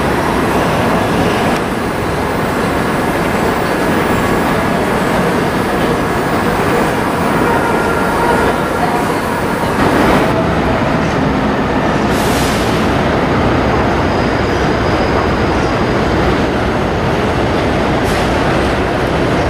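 New York City subway trains running on elevated steel track: a loud, steady rumble of wheels on rail. Faint wheel squeal sounds in the first half as an R68 D train rounds the curves. About ten seconds in, the sound changes abruptly.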